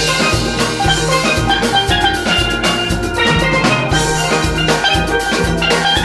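Steel band playing an up-tempo piece: steelpans ringing out melody and chords over bass pans and a drum-kit beat.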